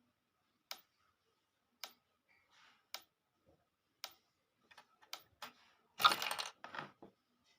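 Sharp clicks about once a second, then a quicker run of clicks and a louder clattering rattle about six seconds in.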